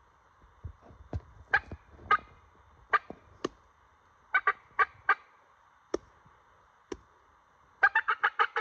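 Turkey clucks: about a dozen short, sharp notes at uneven intervals, then a fast run of notes, about seven a second, starting near the end.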